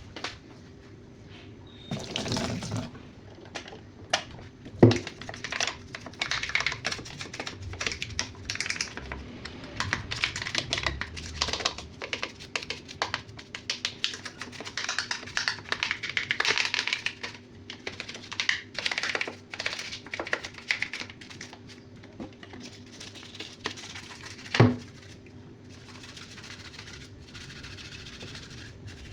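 Hands handling and scrubbing the plastic lint filter of a twin-tub washing machine: dense, irregular plastic clicks, clatter and scratchy scrubbing, with two sharper knocks, one about five seconds in and one near the end.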